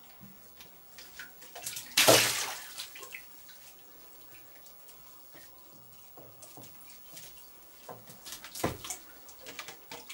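Water splashing and sloshing in a small cave pool as a fishing bottle and a hooked softshell turtle are hauled out by the line. There is one loud splash about two seconds in, then smaller splashes and knocks.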